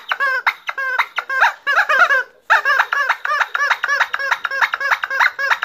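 Rubber chicken squeezed over and over, giving a fast run of high squawks, about five a second, each rising and falling in pitch, with one short pause a little over two seconds in.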